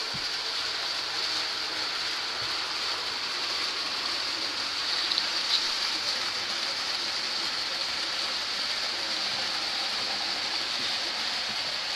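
Steady whirring hiss of scale model trains running on the layout's track, with a couple of faint clicks about five seconds in.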